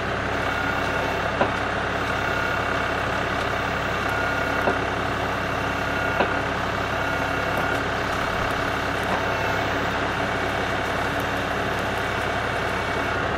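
LS MT240E compact tractor's diesel engine running steadily while its rear backhoe is worked, with a few brief sharp knocks.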